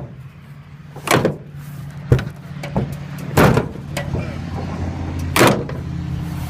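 Metal clanks and rattles of a bus hood and its latch being worked, five separate knocks spread across a few seconds, over a steady low hum.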